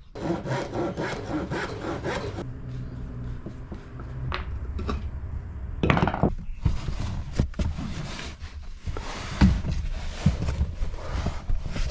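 A saw cutting through a scrap-wood board. Quick, even strokes for the first couple of seconds give way to rougher, uneven strokes.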